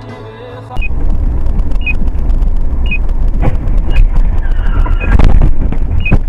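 Music cuts off and, about a second in, loud dash-cam crash audio takes over: heavy rumbling vehicle and road noise with knocks and clattering impacts, loudest about five seconds in. A short electronic beep repeats about once a second.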